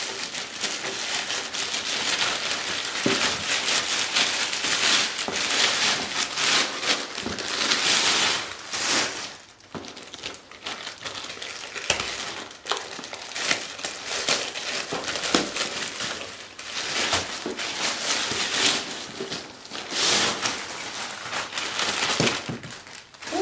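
Plastic mailer bags crinkling as they are handled and opened and a cardboard box is pulled out of one, coming and going in loud stretches with a quieter spell about ten seconds in.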